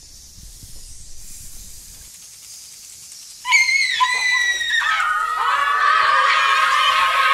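Faint at first, then about three and a half seconds in a child lets out a sudden high-pitched scream, and a second later a whole group of children joins in, screaming and shouting together.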